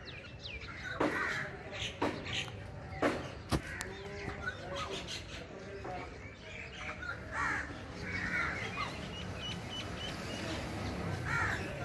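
Rufous treepie calling: several short calls in loose bouts, one after another early on and again later, with pauses of a few seconds between.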